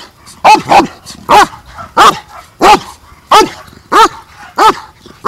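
German Shepherd barking repeatedly in a steady, even rhythm: seven loud barks, about one every two-thirds of a second.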